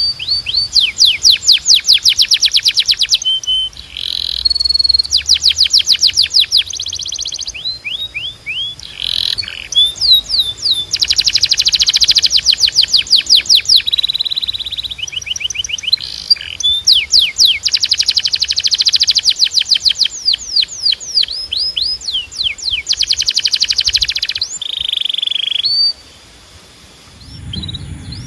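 Domestic canary singing a long, loud song of rapid trills, runs of fast repeated sweeping notes, broken by held whistled notes. The song stops suddenly about 26 seconds in.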